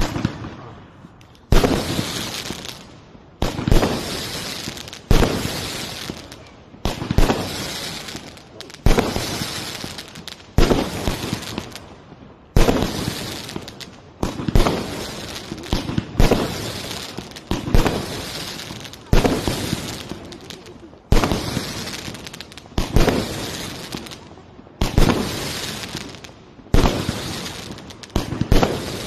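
A ground-fired firework battery (cake) shooting aerial shells in a steady sequence, about one every two seconds, around sixteen in all: each a sharp bang followed by crackling stars dying away.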